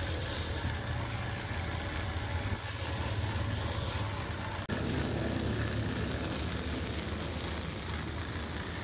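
Hand-held rotary buffer running steadily, its abrasive wheel grinding against rubber to roughen a tractor-tire patch.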